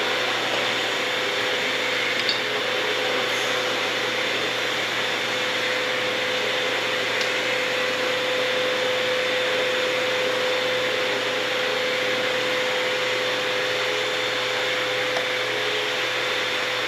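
A running machine gives a steady whirring hum over an even hiss, holding one pitch with no change in level.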